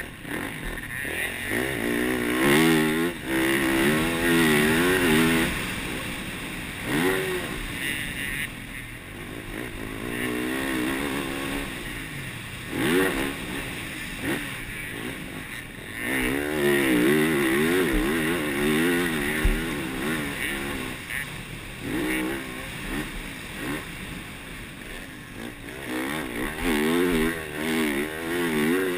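Yamaha YZ450F's single-cylinder four-stroke motocross engine under hard riding, its pitch climbing and dropping over and over as the throttle is worked and gears are changed, with short lulls off the throttle.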